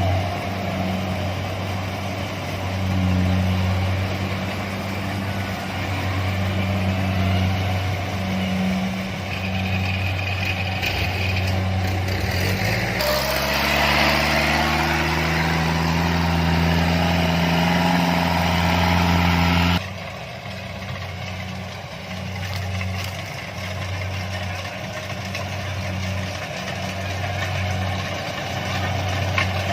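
Kubota DC-70 combine harvester's diesel engine running with a pulsing note. A little under halfway in it revs up and holds higher, then about two-thirds in it drops abruptly back to its lower running note.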